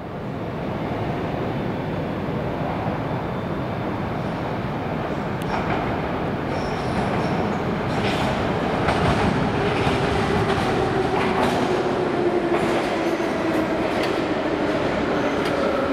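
Metro train pulling into the station from the tunnel: a steady rumble of wheels on rail with occasional clicks, and a whine that falls slowly in pitch as the train slows, growing a little louder as it runs along the platform.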